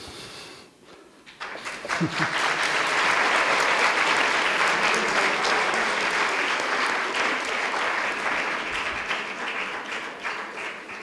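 Audience applauding, starting about a second and a half in and slowly dying away toward the end.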